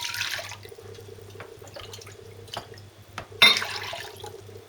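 Strained chicken broth being poured and splashing into a measuring jug, with a stronger pour about three and a half seconds in and a few light knocks in between.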